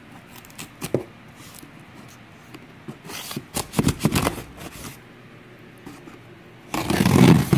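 Knife blade scraping and cutting along tough corded packing tape on a cardboard box, with scratchy rasps and cardboard handling. A click about a second in, and the loudest, harsh scrape near the end.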